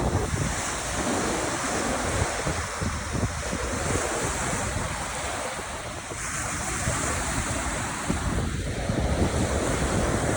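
Small lake waves washing onto a beach, a hiss that swells and fades every few seconds, with wind rumbling on the microphone.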